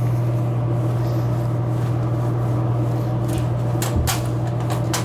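A rag wiping the metal front of a soda vending machine's vend mechanism: a few quick rubbing strokes in the last couple of seconds, with a knock about four seconds in, over a steady low electrical hum.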